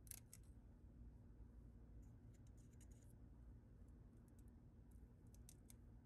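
Near silence: a low steady hum with faint clicks and light scratches in three small clusters, from a 3D-printed plastic knife being handled in the hand.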